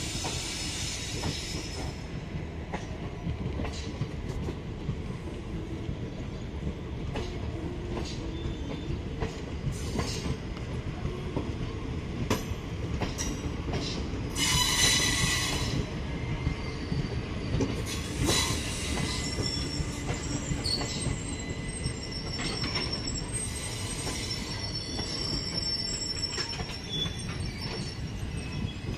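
Passenger train coaches rolling past with a steady low rumble and scattered wheel clicks. The wheels squeal in high ringing tones now and then, loudest about halfway through.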